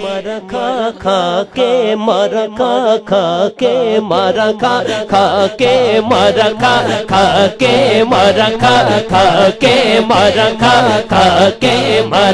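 Punjabi devotional naat singing: a voice holding a long, wavering, ornamented melodic line with no clear words, over a steady low accompaniment and a regular beat.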